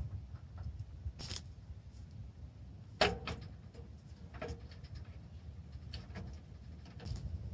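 Metal clicks and clanks of a small cylindrical camp wood stove being handled as its legs are folded out and it is set down on them, with one sharp clank about three seconds in, the loudest, over a steady low rumble.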